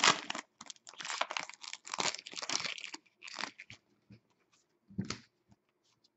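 Foil wrapper of a hockey trading-card pack torn open and crinkled by hand for about three seconds. Then come sparser clicks and rustles as the cards are slid out and handled.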